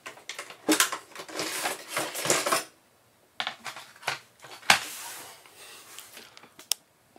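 The aluminium processor tray of a 2009 Mac Pro slides out of its bay with about two seconds of metallic scraping and rattling, followed by a few sharp knocks as it is handled and set down.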